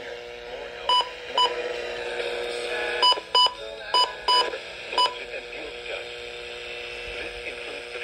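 Short electronic key-press beeps from a weather alert radio as its FM tuning buttons are pressed: seven single-pitched beeps, mostly in quick pairs, over faint radio audio.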